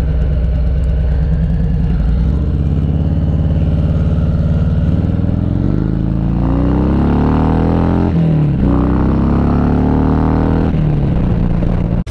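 Cruiser motorcycle engine heard from on board while riding. It runs steadily at first, then accelerates with a rising pitch, dips sharply at a gear change about eight seconds in, rises again, and eases off near the end.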